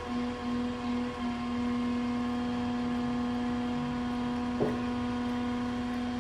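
Electric trolling motor running with a steady hum, cutting in and out briefly in the first second, then running unbroken. A faint click comes about four and a half seconds in.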